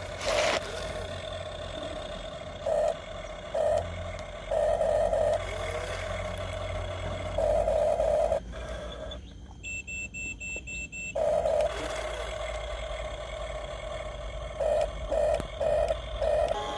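Small electric gear motors of a Huina remote-control excavator and dump trucks whining in short bursts, stopping and starting. About ten seconds in comes a quick run of about six high electronic beeps, like a toy's reversing signal.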